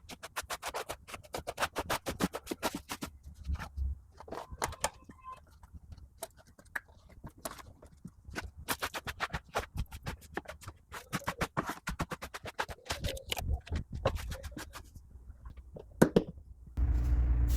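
Scratching and scrubbing of a brush on car interior surfaces, in irregular quick strokes with sharp clicks.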